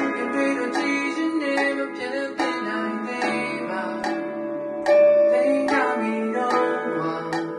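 A man singing into a microphone with guitar accompaniment, the guitar plucked in a steady rhythm; he holds one louder note about five seconds in.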